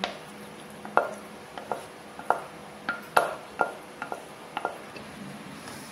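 Spatula scraping and knocking against a metal pan while thick batter is scraped out into a cake tin: about ten sharp, uneven clanks, some with a short ring.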